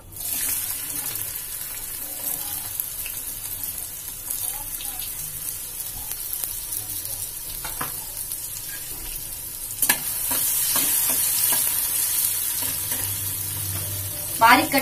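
Finely chopped onion sizzling in hot peanut oil in a steel kadhai as it goes into the pan, with hing and cumin already in the oil. About ten seconds in a steel spatula knocks the pan and starts stirring, and the sizzling grows louder.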